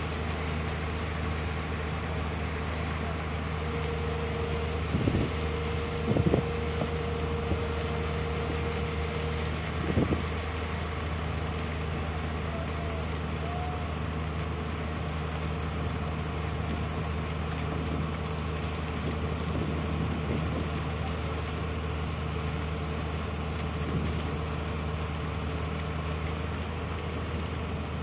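Steady low drone of a Watermaster amphibious dredger's engine running, with a few sharp knocks about five, six and ten seconds in.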